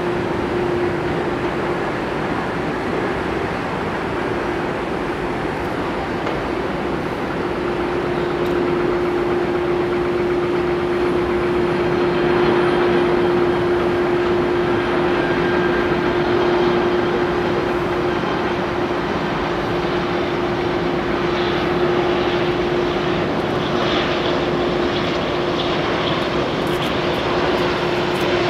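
Jet engines of a Boeing 747-400 freighter on final approach: a steady rushing engine noise that grows slightly louder as the aircraft nears, with a steady hum throughout.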